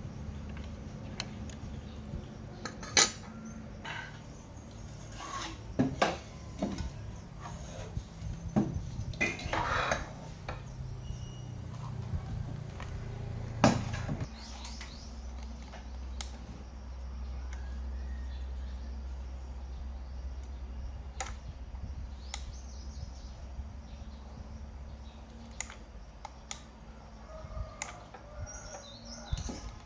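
Scattered metallic clicks and clinks of small tools being handled at a repair bench, over a low steady hum that shifts lower about halfway through.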